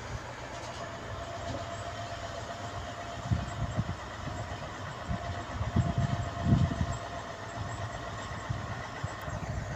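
Diesel engine of a UD truck running at low speed as the truck crawls down a dirt track, a steady low rumble with a thin steady whine. Irregular low buffeting comes through in the middle.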